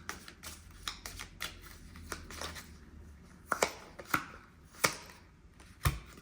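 A deck of fortune-telling cards being shuffled and laid out: a quick run of soft flicks and ticks, then a few louder single snaps of cards in the second half.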